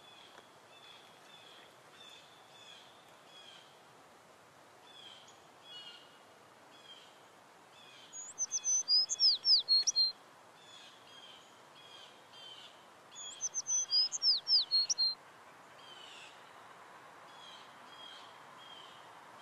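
Songbirds singing outdoors: a steady run of short repeated chirps, with a louder song of quick, falling high notes breaking in twice, about eight seconds in and again about thirteen seconds in, each lasting about two seconds.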